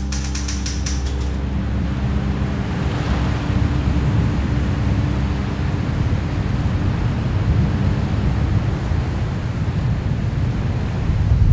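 Lake Michigan waves breaking on a sandy beach, with wind rumbling on the microphone. A sustained musical tone with a quick run of ticks fades out in the first second or two.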